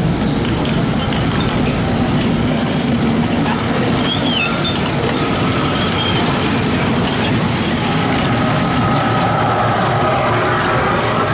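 Children's fairground ride of small trucks and cars running around its rail track: a steady rumble of wheels and drive.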